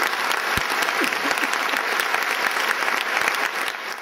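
A large lecture-hall audience applauding, a dense steady clatter of many hands that dies away near the end.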